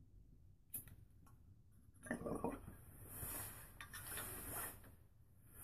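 Faint bubbling of water in a glass bong as a hit is drawn through it, with a single click about a second in, then a long breath out.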